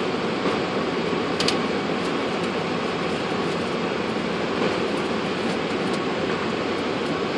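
Steady rushing flight-deck noise of a Boeing 747-400 taxiing, air conditioning and idling engines, with a sharp click about a second and a half in.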